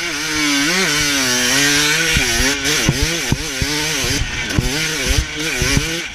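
Motocross bike engine revving up and dropping back again and again as the rider works the throttle through the corners. A steady rushing hiss of wind on the microphone runs over it.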